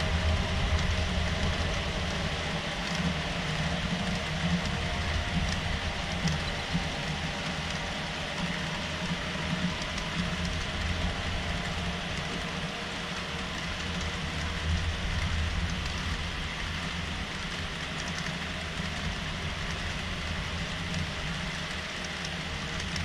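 HO-scale model freight cars rolling past in a long unbroken string, their small metal wheels making a steady fine clatter on the track over a low, even hum.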